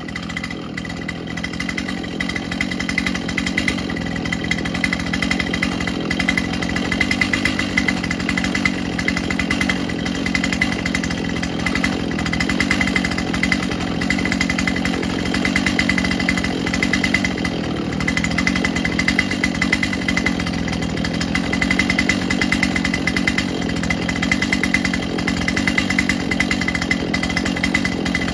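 Large two-stroke chainsaw running continuously at high revs, holding a fairly steady pitch with slight dips.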